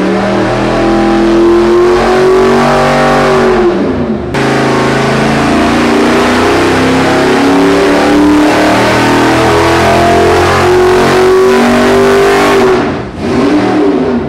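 Fuel-injected GM 502 big-block Chevy V8 running hard under load on an engine dynamometer at about 4,300 rpm. Its pitch dips briefly about four seconds in, then holds steady. Near the end the throttle is closed and the revs fall away.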